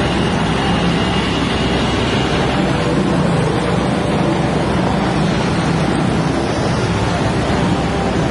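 Steady roadside traffic noise, with motorcycles passing close by over the running diesel engine of a Hitachi Zaxis 75 mini excavator.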